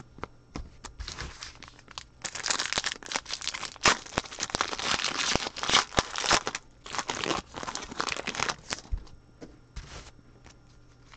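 Foil trading-card pack wrapper crinkling and tearing as it is ripped open: a dense run of crackling with sharp clicks for several seconds. It thins out to a few light clicks near the end as the cards are handled.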